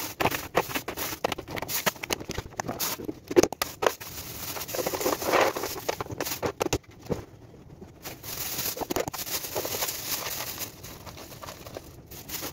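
Thin plastic bags crinkling and rustling as dry food is tipped out of them into a tall plastic canister, with irregular clicks and knocks of the pieces landing.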